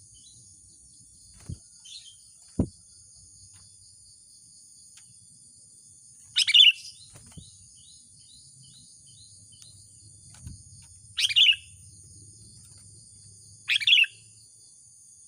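Sooty-headed bulbul (kutilang) giving short, loud, falling calls: three strong ones, about five and then two and a half seconds apart, and a fainter one about two seconds in. A steady high insect buzz runs behind them, and two soft low knocks come in the first three seconds.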